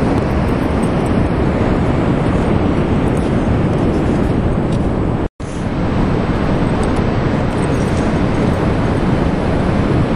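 Steady rushing noise of wind on the microphone mixed with ocean surf, cutting out for an instant about halfway through.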